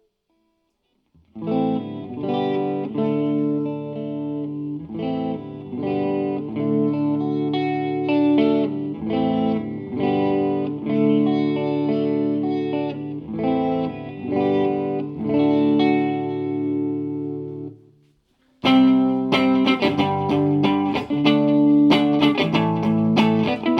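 Acoustic guitar played through a Zoom 504 Acoustic multi-effects pedal: evenly paced picked chords ring out for most of the time. After a brief pause about 18 seconds in, a louder, brighter passage of fast strumming follows.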